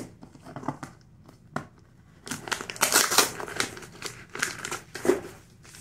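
Crinkling of the clear plastic packing-list pouch on a cardboard shipping box as it is handled and peeled open, with a few light clicks at first and a dense run of crinkling from about two seconds in.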